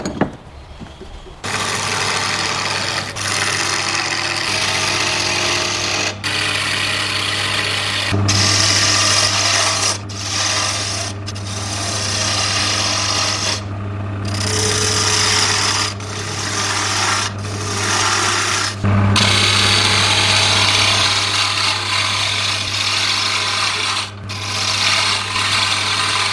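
Electric power tool running with a steady motor hum and a rasping, abrasive scrape as it works the surface of an old vegetable slicer. It starts about a second and a half in and briefly dips or lifts off every second or two.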